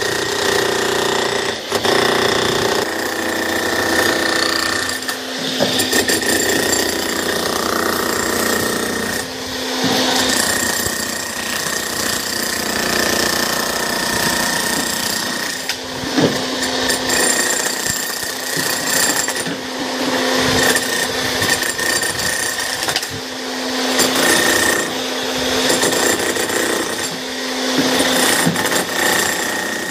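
Slab cutter machine cutting through a slab: a continuous loud grinding with a steady high whine, its loudness dipping and swelling every few seconds as the blade works through the cut.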